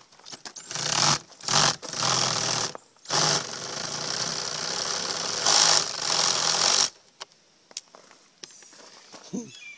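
Power drill running in three or four short trigger bursts, then a steady run of about four seconds that stops abruptly, while the workers take out the fasteners holding the boat's top cap.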